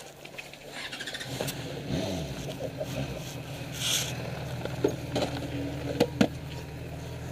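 Motorcycle engine starting up and running steadily, its pitch dipping and rising once around two seconds in. A few sharp clicks come near the end.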